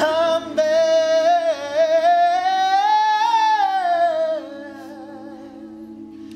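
Male soloist singing one long held note on "I'm", bending up in pitch and back down, over a steady low chord sung by a men's a cappella group. The solo note fades out about four and a half seconds in, leaving the group's held chord.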